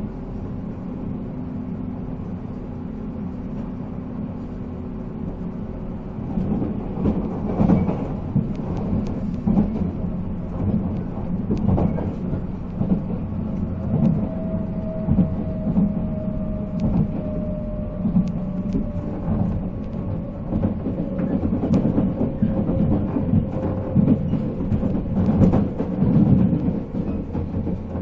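Running noise of a 485-series electric train with MT54 motors, heard from on board: a steady rumble, then from about six seconds in the irregular clicking and knocking of the wheels over rail joints, with a faint tone that slowly falls in pitch.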